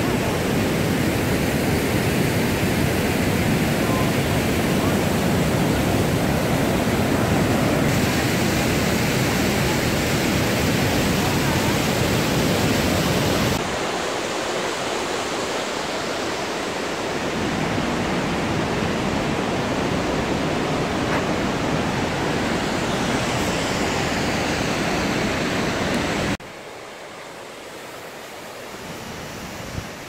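Waterfall rushing: a loud, steady wash of water noise. It drops in level a little before halfway and falls much quieter near the end.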